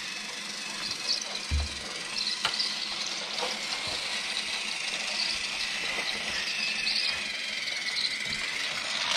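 Battery-powered Thomas toy engine running along plastic track with a cargo car, its small motor giving a steady high whir. A few light clicks, and a dull low thump about one and a half seconds in.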